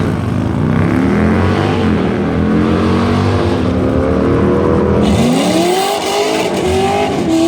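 Loud car engine running hard under acceleration. About five seconds in, its pitch climbs steeply, drops back and climbs again several times, like revving up through the gears.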